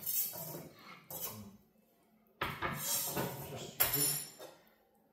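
Kitchen dishes and utensils clattering and knocking on the countertop, in two bouts, the second louder, with a sharp knock about four seconds in.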